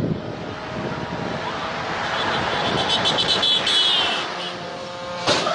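A road vehicle drives past, its engine and tyre noise swelling over a few seconds and then fading, with a high whine near its loudest point. A sharp knock comes near the end.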